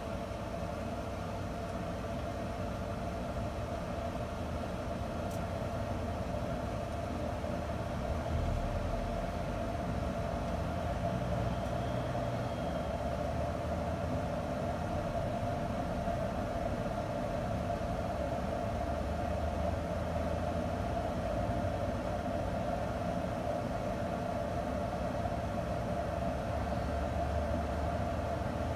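Camp Chef pellet grill's combustion fan running steadily, a constant hum over a low rumble, as the Savannah Stoker controller holds the grill near its 225° set temperature.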